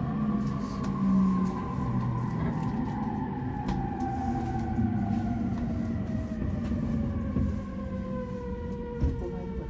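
Electric commuter train slowing along a platform: its traction motors whine in several tones that fall steadily in pitch as it brakes, over the low rumble of the wheels on the rails with scattered clicks and a knock near the end.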